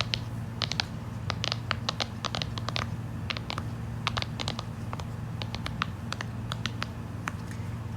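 Silicone pop-it fidget toy's bubbles being pressed one after another: a run of small, sharp pops, several a second, at an uneven pace.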